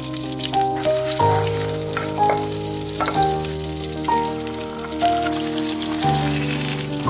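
Food sizzling steadily in a hot frying pan, under background music with a melody of changing notes.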